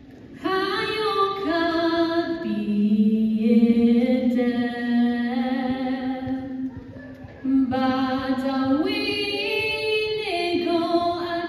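A single voice singing unaccompanied, holding long notes in a slow, stepping melody, with a brief pause about seven seconds in.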